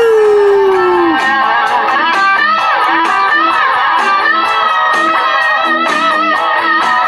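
Electric guitar lead in a rock song, over a backing rhythm with drums. A note slides down over the first second, quick melodic runs follow, and a long held high note starts about four seconds in.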